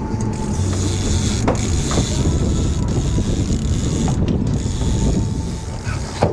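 Offshore fishing reel being worked against a hooked king mackerel, a steady mechanical whirring and clicking from the reel over a constant low rumble of boat engine and wind.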